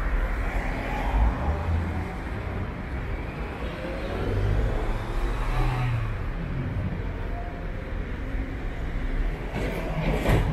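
City street traffic: cars passing, with engine and road noise, and a sharp knock near the end.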